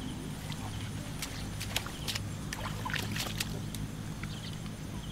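Light clicks and rattles of a woven bamboo fish trap being handled and opened, over a steady low engine hum.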